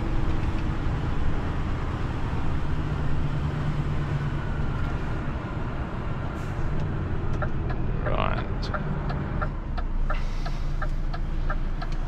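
Diesel engine and road noise inside the cab of a heavy recovery truck driving slowly with a tractor unit on a rear lift. From about seven seconds in, a light ticking comes in at about two ticks a second.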